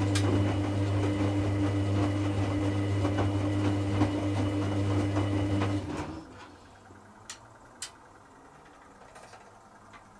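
Hoover Classica 1100 washing machine's drain pump humming steadily, then cutting off abruptly about six seconds in. Two short clicks follow, typical of the programme timer moving on.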